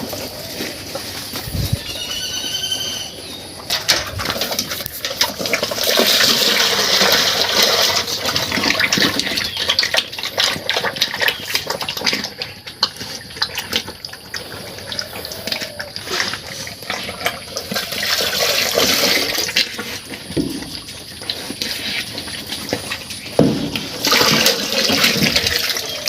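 Water rushing and splashing in uneven surges, with a short high-pitched call about two seconds in.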